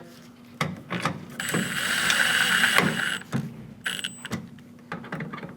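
Power screwdriver driving Phillips head screws into a plastic door-handle trim piece: a steady whir of about two seconds starting a second and a half in, then a brief second run about four seconds in, with a few clicks between.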